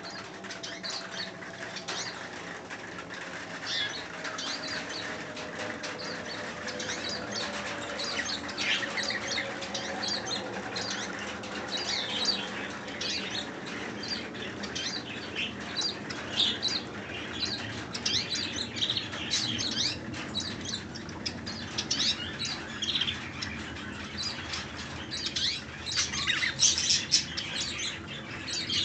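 Caged Eurasian siskins fluttering and giving many short, high chirps, busiest and loudest near the end.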